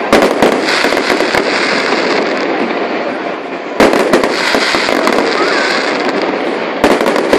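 Fireworks display: a dense, continuous crackle of bursting shells, with sharper, louder bangs at the start, about four seconds in, and near the end.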